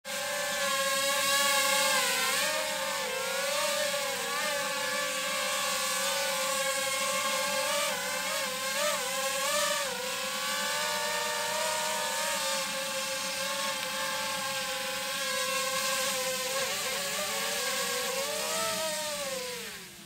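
Ryze Tello mini quadcopter hovering, its four propellers giving a loud high buzzing whine whose pitch wavers up and down as it moves. Near the end the drone is caught by hand and the motors wind down with a falling pitch.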